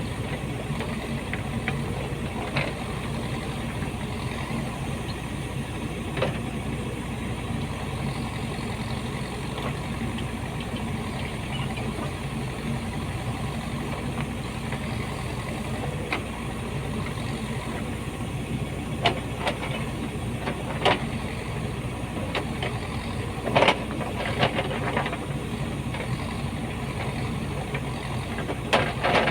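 Backhoe excavator's diesel engine running steadily while digging, with a handful of sharp clanks and knocks, the loudest a close pair about two thirds of the way through.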